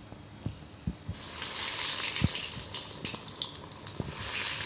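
A breadcrumb-coated chicken cutlet deep-frying in hot oil in a kadai: a steady sizzling hiss starts about a second in as it goes into the oil, with a few faint knocks.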